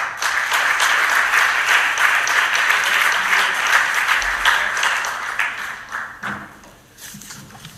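Audience applauding, a dense patter of many hands clapping that fades out about six seconds in.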